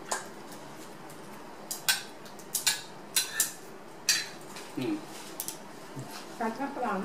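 Scattered sharp clicks and clinks of metal cutlery against plates and crab shell while steamed crab is eaten, about ten short strikes at uneven intervals.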